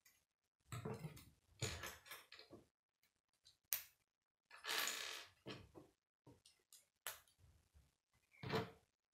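K'nex plastic rods and connectors rattling and clicking as they are handled and pressed together: several short bursts of rattling, with a few sharp single clicks between them.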